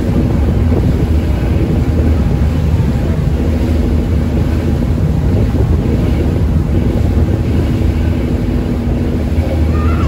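Steady low drone of a passenger ferry's engine under way, with wind buffeting the microphone.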